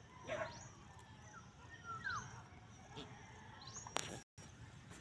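Faint open-air ambience with scattered short, high bird chirps, some sweeping upward, and a sharp knock about four seconds in as the phone is handled.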